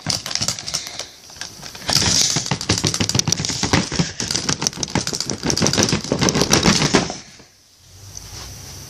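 Plastic Suchomimus action figure's bite feature worked repeatedly by its button: a fast run of plastic clicks and clacks as the head swings and the jaw snaps shut. The clicking stops suddenly about seven seconds in.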